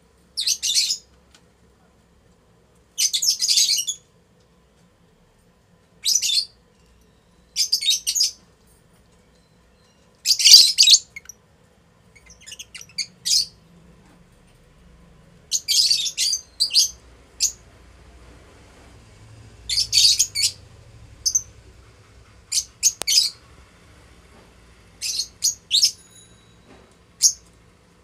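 A pair of lutino Fischer's lovebirds chirping: short bursts of shrill, high chatter, irregularly spaced one to three seconds apart, with single sharp chirps among them.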